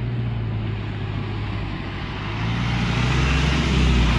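Isuzu light truck's engine running at low speed as it creeps past close by, growing louder as it draws near, with a gravelly hiss from the tyres on the dirt road.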